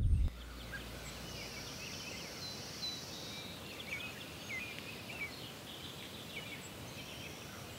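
Outdoor ambience of small birds chirping, with many short calls and quick pitch glides over a steady background noise. Background music cuts off just after the start.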